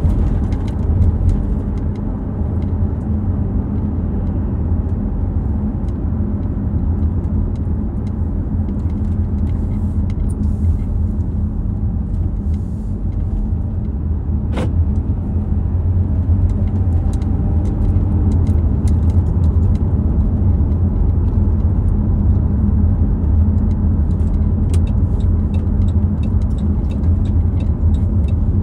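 A car's engine and road noise inside the cabin while driving, a steady low rumble that grows a little louder in the second half. A single sharp click comes about halfway through.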